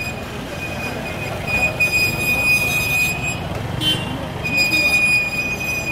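Motorcycle engines running close by, under a high-pitched steady whine that sounds twice for a second or two, with a short beep between the two.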